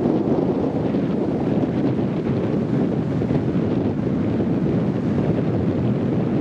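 Wind blowing on the microphone over the steady rush of surf breaking on a shallow sandy beach.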